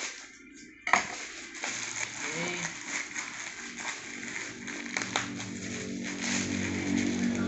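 Thin plastic courier bag rustling and crinkling as it is peeled off a cardboard box by hand, with a sharp snap about a second in. A low pitched hum with several steady tones rises under it over the last couple of seconds.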